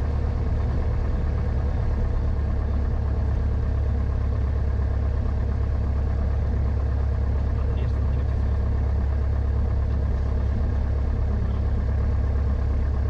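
Grumman AA-5 light aircraft's piston engine and propeller running steadily at low taxi power: an even, deep drone heard from inside the cockpit.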